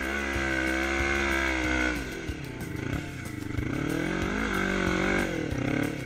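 Yamaha Raptor 350 quad with a swapped-in Honda CB500 engine revving under throttle while riding up and over sand. The pitch climbs in the first second, drops about two seconds in, and rises and falls again near the end.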